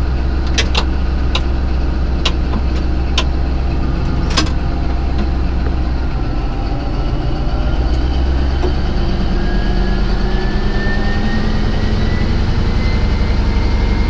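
Caterpillar D11 bulldozer's diesel engine heard from inside the closed cab, brought from idle up to full load in second gear against the torque converter; from about nine seconds in, a whine climbs slowly in pitch as the load comes on. A few sharp clicks sound in the first few seconds.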